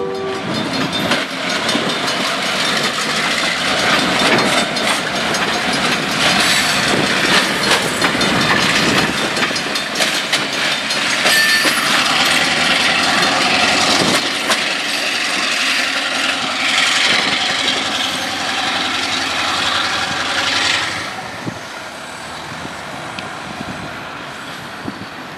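A diesel-hauled CN test train, locomotive and track evaluation car, rolling through a level crossing with its wheels clattering over the crossing and rail joints. The noise drops off fairly suddenly near the end.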